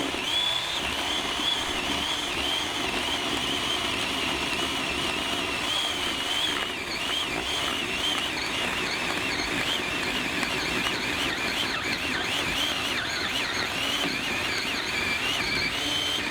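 Ryobi 18-volt 10-inch cordless electric chainsaw cutting into a wooden stump: a steady high motor whine whose pitch wavers up and down as the chain bogs under load.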